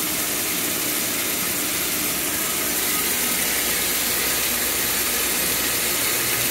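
Steady rush of a hard water jet from an open gate valve on a running sprinkler pump, spattering against a wooden fence, with the pump's low hum beneath it. The pump is primed and pumping at full flow.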